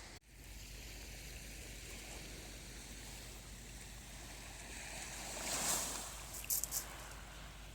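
Sea surf washing steadily on the shore, with a wave swelling louder about two-thirds of the way in. Three short, sharp clicks follow just after it.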